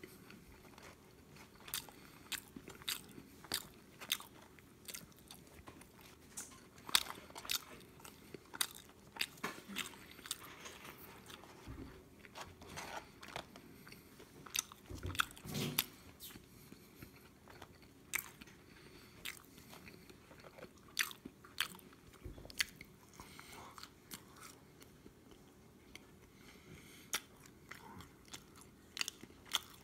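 A person chewing McDonald's French fries, with many sharp irregular mouth clicks and a few dull thumps.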